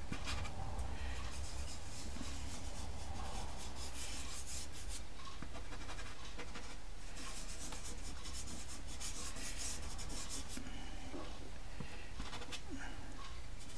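Fingertip rubbing soft pastel into textured pastel paper, a run of soft scratchy strokes that come in clusters, blending and softening the colour.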